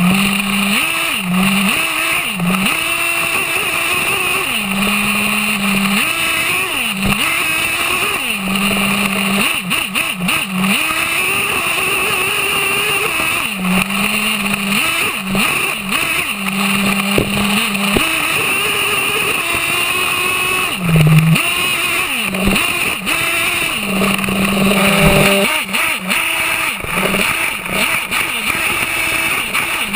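Onboard sound of an HPI Savage X 4.6 nitro monster truck's two-stroke glow engine, revving up and easing off over and over as it is driven across sand. It holds a high steady pitch at full throttle for a second or two at a time. There are occasional sharp knocks.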